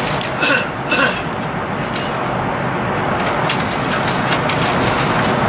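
Steady rushing noise inside the cabin of a high-speed train running at speed. Two brief pitched sounds come about half a second and a second in.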